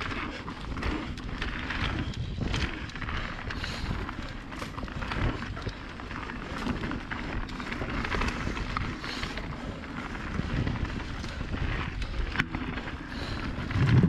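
Mountain bike riding down a dirt singletrack: tyres rolling over dirt and roots, with frequent knocks and rattles from the bike over bumps, and wind rushing over the GoPro's microphone.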